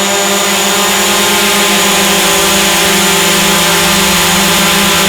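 Quadcopter drone, a DJI Mavic Pro, hovering: its motors and propellers give a loud, steady, multi-toned hum.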